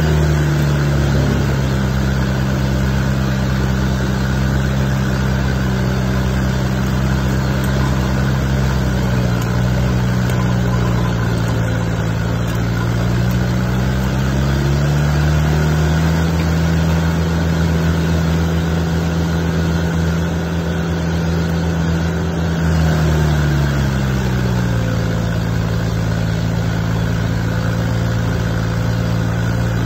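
Rayco RG100X stump grinder running hard while it grinds an oak stump, the engine note shifting with the load on the cutter wheel. The pitch climbs about halfway through and sags again a few seconds before the end.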